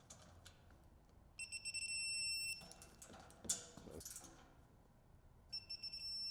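Two steady electronic beeps, each lasting about a second and starting about a second and a half in and again near the end: an electronic torque wrench signalling that the bumper screw has reached its set torque. A few faint clicks come between the beeps.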